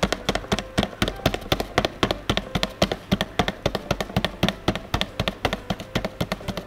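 Fingers tapping and scratching on a cardboard puff pastry package held close to the microphone, as a quick run of crisp taps, about five or six a second.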